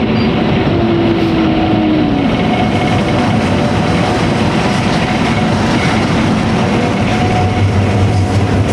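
Steady, loud rumbling noise of a running motor or moving vehicle, with a short falling whine about a second in.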